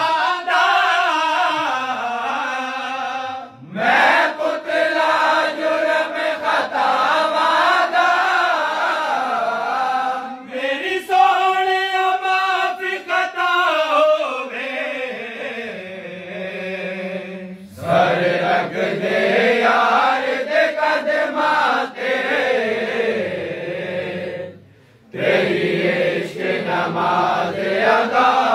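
Men's voices chanting a Sufi devotional verse in long, drawn-out sung phrases, with short breaks about every seven seconds.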